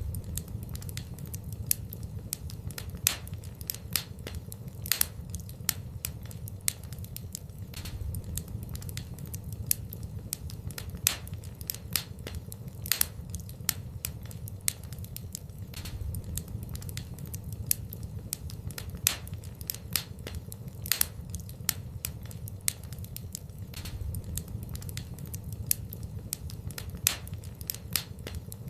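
Wood fire in a fireplace crackling, with irregular sharp pops several times a second over a steady low rumble.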